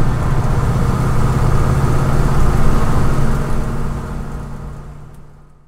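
A car at highway speed heard from inside the cabin: a steady low engine and drivetrain drone over road noise, fading out over the last second or so.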